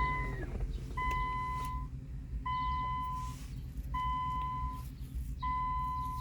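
Electronic beeper sounding a steady single-pitched beep, each lasting just under a second and repeating about every one and a half seconds, over a low steady hum, during a smart key learning procedure.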